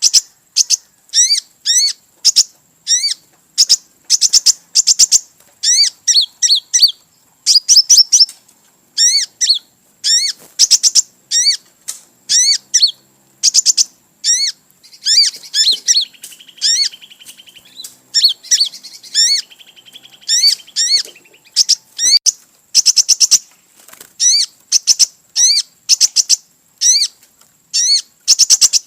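A kolibri (sunbird) calling. It gives short bursts of rapid, sharp, high chirps, repeated about once a second. Partway through, a buzzy trill runs between the chirps for several seconds.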